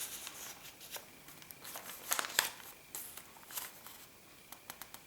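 Paper journal pages and pockets being handled and turned: soft rustling and crinkling with scattered light ticks, a short flurry about two seconds in and a few quick ticks near the end.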